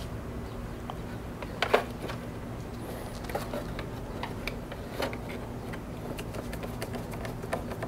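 Cone air filter being pushed onto the engine's intake tube and its hose clamp tightened with a screwdriver: scattered light clicks and taps, with one sharper click a little under two seconds in.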